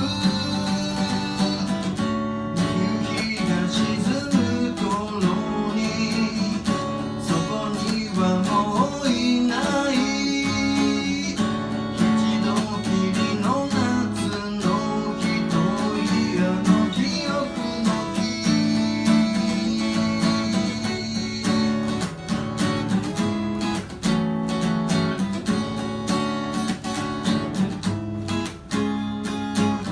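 Strummed acoustic guitar playing the instrumental break of a song, with a melody line that bends in pitch over the chords.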